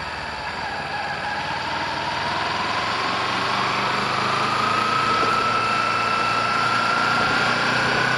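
Kawasaki Ninja 250R's parallel-twin engine accelerating out of a left turn, its note rising slowly and steadily and growing louder as the bike gathers speed, with a rush of wind noise on the bike-mounted camera.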